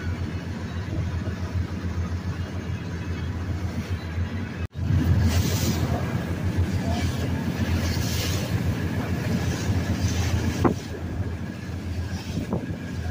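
Lobster boat running at speed: a steady, pulsing engine drone, with wind on the microphone and the rush of the wake. A brief dropout about five seconds in, where the recording cuts.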